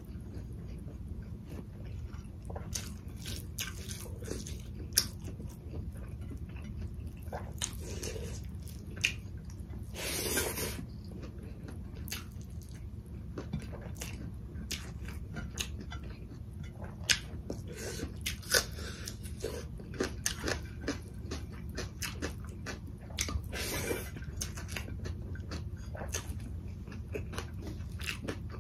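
Close-miked chewing of rice and curry: a string of wet mouth clicks and lip smacks at an irregular pace, a few of them louder, with a short breathy sound about ten seconds in, over a low steady hum.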